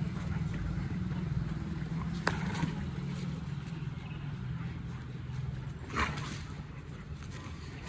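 A group of dogs playing together, with a short sharp cry from one dog about six seconds in and a steady low hum underneath.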